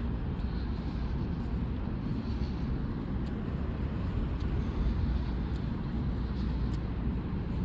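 Steady low rumble of outdoor background noise with a few faint clicks and no clear speech.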